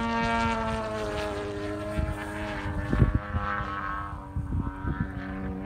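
Radio-controlled model plane's GP 88 gas engine and propeller running steadily in flight, its pitch easing down slightly over the first second or two; the JetCat turbine is not yet running. Gusts of wind thump on the microphone from about halfway through.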